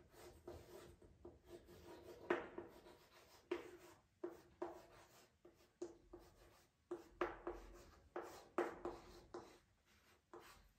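Chalk writing on a chalkboard: a faint string of short, irregular scrapes and taps as words are written out.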